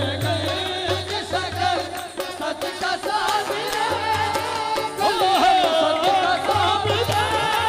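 Qawwali sung live: voices singing a melodic line over harmonium, with a hand drum keeping the beat.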